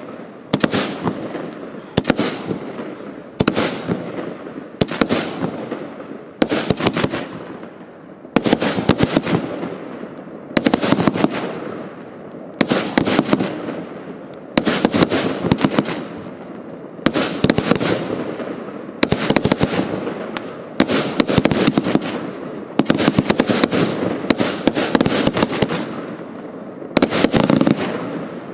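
Hallmark "Game On" compound firework firing in repeated volleys about every two seconds, each a sharp launch followed by a dense string of pops and bangs that fades before the next.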